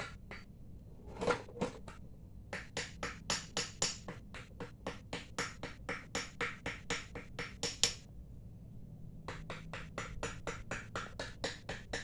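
Rapid light hammer taps on metal, about five a second, coming in runs with brief pauses between them.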